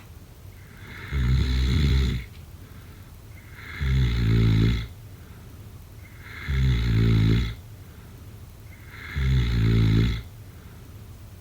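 Snoring: four loud, rough snores of about a second each, coming at an even pace roughly every two and a half seconds, with quiet gaps between.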